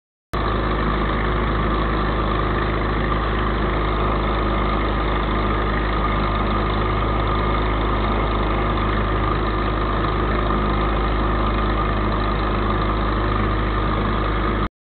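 Ultralight aircraft engine and propeller running steadily in flight, heard on board with a steady drone and rush of air. It cuts in abruptly just after the start and cuts off abruptly near the end.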